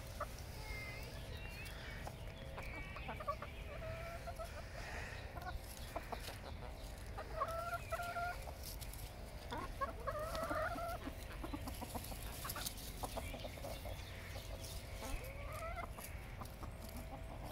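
Several hens clucking, with scattered short calls that glide upward in pitch.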